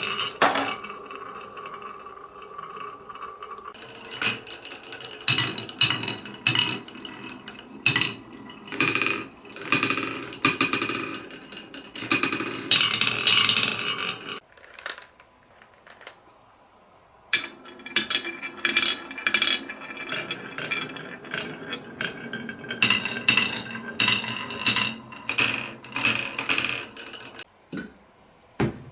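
Marbles rolling and clattering down a marble run built on cans, with many quick clinks, rattles and ringing knocks against the metal. The clatter stops for about three seconds in the middle, then starts again.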